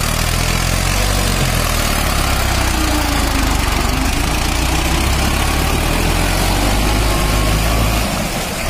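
Mahindra Arjun Ultra-1 555 DI tractor's diesel engine running under load as the tractor is stuck in deep mud. A steady low engine note, easing a little in level near the end.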